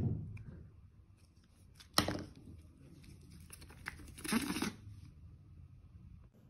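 Faint handling sounds of toothpaste being smeared over a face by hand: a sharp knock about two seconds in and a short rubbing sound a little past the middle.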